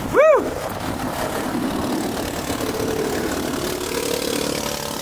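Speedboat's engine running steadily under a wash of water and wind noise. A person gives a short rising-and-falling whoop about a quarter-second in.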